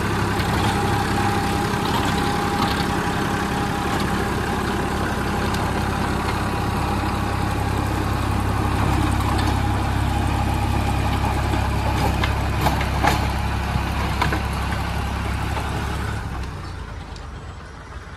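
Massey Ferguson 241 tractor's diesel engine running steadily under load, driving a rotovator through stony soil. A few sharp clicks come a little past the middle, and the sound fades over the last two seconds as the tractor moves away.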